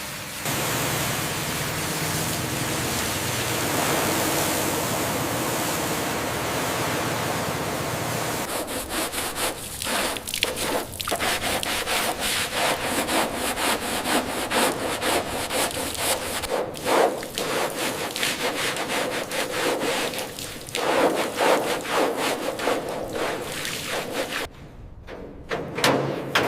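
Abrasive rubbing on a surface: a steady hiss with a low hum for about the first eight seconds, then quick repeated scraping strokes, briefly stopping near the end.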